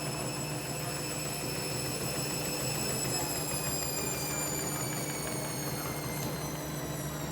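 Hoover washing machine on its final spin, the drum spinning fast with a badly unbalanced load. It makes a steady low hum and rumble, while a high motor whine slowly falls in pitch.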